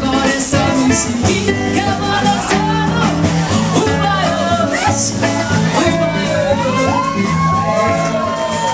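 A woman singing into a microphone with a live band behind her, over guitar and a steady beat. Near the end she holds one long note.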